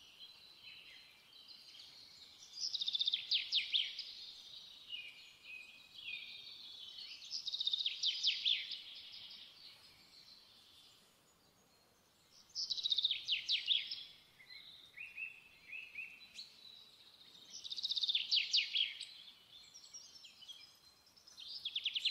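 A small songbird singing: short trilling phrases of fast chirps that come back about every four to five seconds, with quieter twittering between them.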